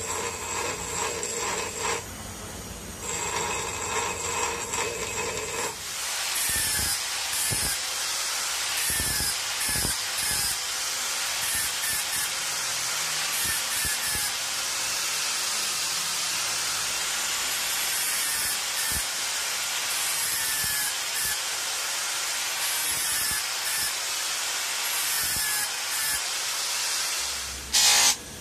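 Angle grinder grinding a steel punch clamped in a vise: a steady, hissing grind whose pitch wavers as the disc is worked over the metal, stopping near the end. For the first few seconds before it, a steady machine whine, broken once briefly.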